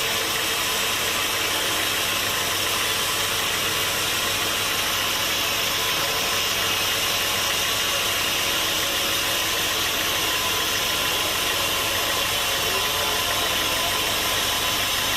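Sawmill machinery running steadily, an engine-like drone with a strong hiss, holding the same pitch and loudness throughout.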